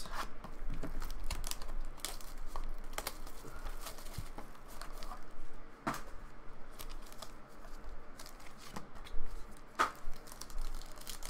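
Trading-card packaging being handled: a cardboard card box slid and handled while a foil pack wrapper crinkles and tears, with many scattered light clicks and taps.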